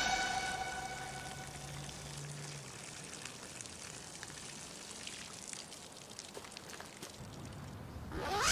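A faint liquid trickle and patter: a man urinating onto leaves and dirt under a bush. A music cue fades out in the first second, and near the end a loud sweep rises sharply in pitch and cuts off.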